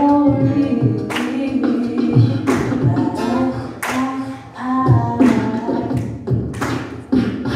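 A woman sings over acoustic guitar while a beatboxer keeps a steady beat of mouth-made kick drums and snare hits.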